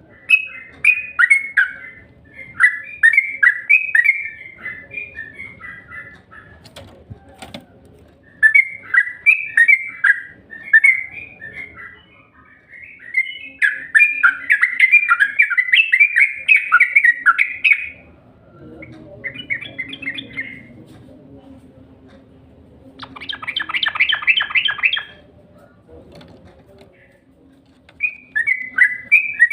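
Yellow-vented bulbul (trucukan) singing in repeated bouts of short, quick chirping notes with pauses between them, and one short rapid chattering run about three-quarters of the way through.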